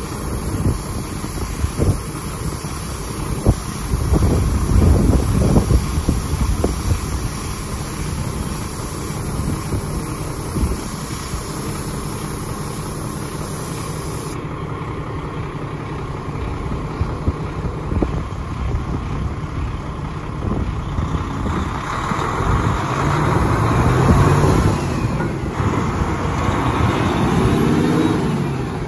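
Peterbilt 365 dump truck's diesel engine running at a steady idle, then revving up with a rising pitch about three quarters of the way in as the truck pulls away across gravel.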